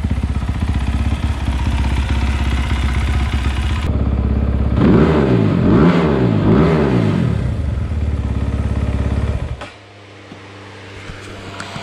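2020 SSR SR300 dirt bike's single-cylinder four-stroke engine, running on a newly fitted Lectron carburetor, idles steadily, then gets about three quick throttle blips that rise and fall in pitch. About nine and a half seconds in, the engine is shut off and cuts out suddenly. Its small radiator cooling fan keeps whirring, because the engine is hot.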